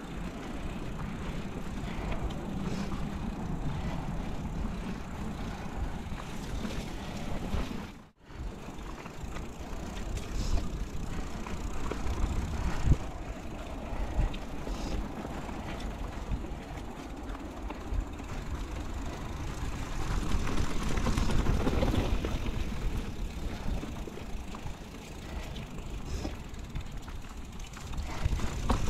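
Mountain bike ridden along a dry dirt singletrack: steady tyre and trail noise with low wind rumble on the microphone, and the bike knocking and rattling over bumps, a sharp knock about thirteen seconds in. The sound cuts out for a moment about eight seconds in.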